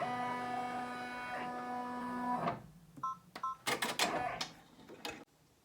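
Embroidery machine running a short tack-down stitch line, a steady whine lasting about two and a half seconds before it stops. Two short beeps follow about half a second later, then a few sharp clicks.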